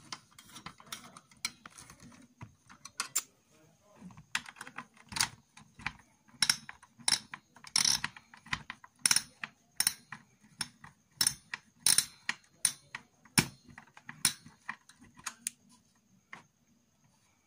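Hand screwdriver tightening the mounting screws of a CPU heatsink fan: irregular sharp clicks, roughly one or two a second, loudest through the middle.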